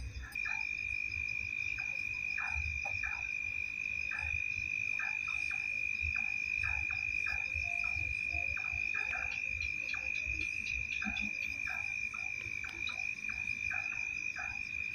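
Night chorus of frogs and insects: a continuous high-pitched trill with many short croaks scattered over it. The trill stops abruptly near the end.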